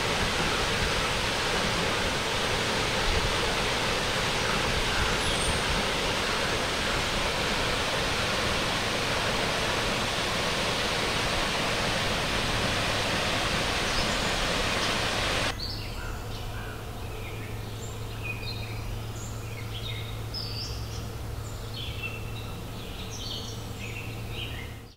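Waterfall pouring with a steady, loud rush. About fifteen seconds in it cuts off abruptly to a quieter forest background: scattered short bird chirps over a faint steady low hum.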